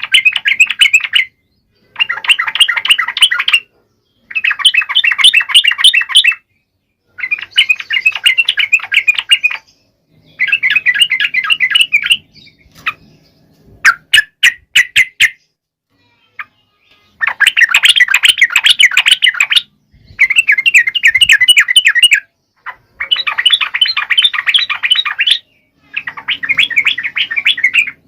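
Sooty-headed bulbul (trucuk) singing loudly: rapid, chattering phrases of about two seconds, repeated with short gaps, and a short run of separate sharp notes near the middle.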